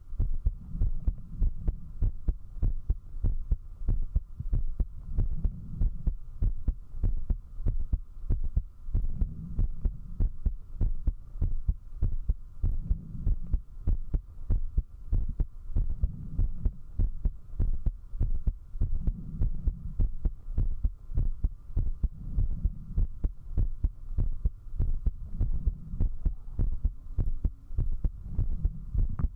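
A person's heartbeat picked up at zero distance by a 3Dio binaural microphone: a steady run of fast, strong low thumps, quickened by drinking alcohol. A faint steady hum lies underneath.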